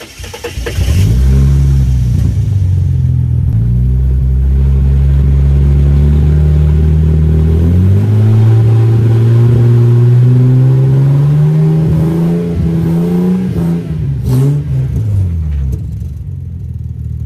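Ford Falcon 4.0-litre inline-six in a Mercedes W203 engine swap, coming up to speed just after starting and running with the revs held up. The revs climb slowly from about eight seconds in, then drop away about three-quarters of the way through, with a knock as they fall.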